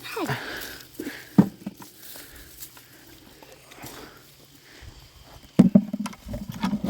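Hands digging and sifting through loose soil for potatoes: scattered soft knocks and rustles, growing busier with a cluster of dull thuds near the end. A short falling vocal exclamation right at the start.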